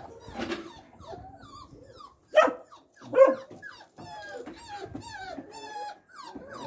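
Dogs whining and yelping in short rising and falling calls, with two loud barks a couple of seconds in.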